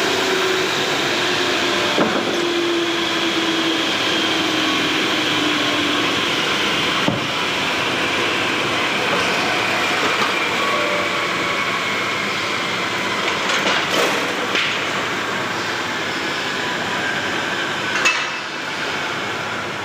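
Power saw running steadily as it cuts wood, its pitch sagging slightly under load, with a few sharp knocks at intervals.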